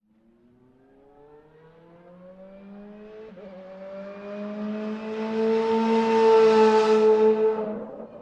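A car engine accelerating hard, its pitch climbing, dipping at a gear change about three seconds in and climbing again. It grows steadily louder to a peak, then fades out near the end.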